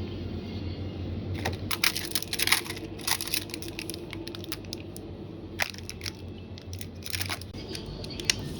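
Plastic snack packaging crinkling and crackling as it is handled and torn open, in a dense run of crackles early on, then a few single crackles.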